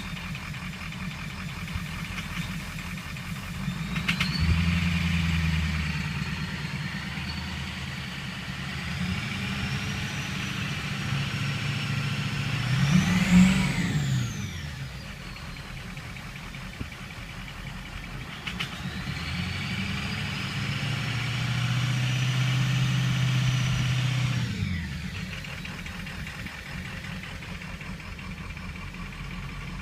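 Ford F-350's 6.0 L Power Stroke V8 turbo-diesel running with a knocking noise, revved up three times and settling back to idle between. The middle rev is the highest, with a high whistle rising and falling with it.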